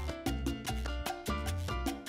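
Background music in a Latin, salsa-like style, with a steady beat of bass notes and sharp percussion strokes.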